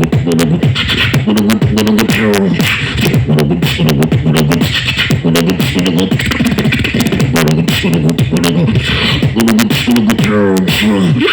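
Beatboxing: vocal percussion clicks and hits in a steady beat over a vocal bass line that slides up and down.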